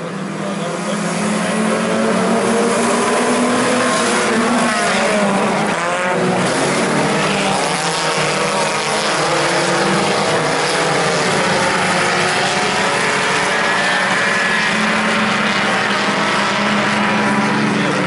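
A pack of IMCA Sport Compact race cars, four-cylinder front-wheel-drive compacts, running hard on a dirt oval on a restart. Many engines rev over one another, building up over the first couple of seconds and then staying steady and loud.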